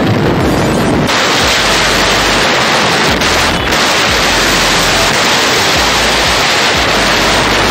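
Steady loud rush of wind and road noise from a motorbike moving at highway speed. The tone changes abruptly about a second in.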